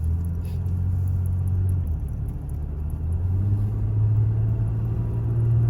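An engine running steadily with a low hum, rising in pitch about three and a half seconds in as it picks up speed.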